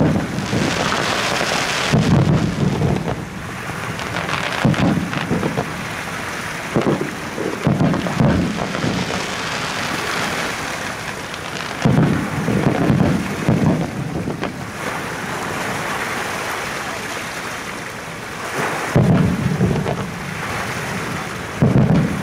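Aerial fireworks shells bursting: deep booms at uneven intervals, several in quick runs of two or three, over a steady hiss.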